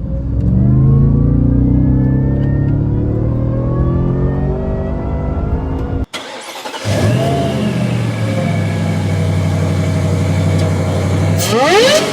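Supercharged V8 of a Ford F-150 Raptor R with a 3.8L Whipple supercharger, heard in two clips. In the first the engine runs at a fast idle with a pitch that creeps slowly upward. After a sudden cut about six seconds in, it comes back, idles steadily, and is blipped up sharply in revs near the end.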